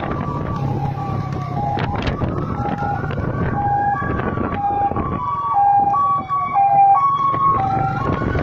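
Emergency sirens sounding together. One switches back and forth between a high and a low note, each held about half a second; the other slowly rises and falls in pitch. A steady low rumble runs underneath.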